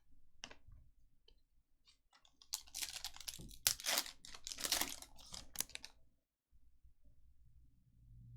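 Trading-card pack being handled and opened: a few light clicks, then about three and a half seconds of dense crinkling and tearing of the wrapper, with cards clicking together.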